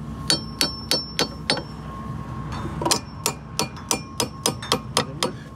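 Hammer blows in a steady series, about three a second, with a short pause after the first five; each blow has a light metallic ring.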